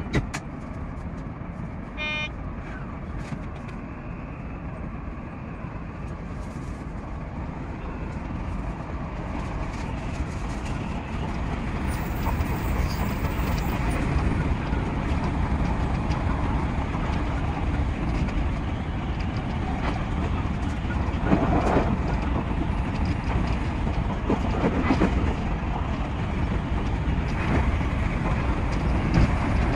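Odakyu 5000 series electric train running, heard from the driver's cab. It grows louder as the train pulls away from the station and picks up speed. A short electronic chime sounds about two seconds in.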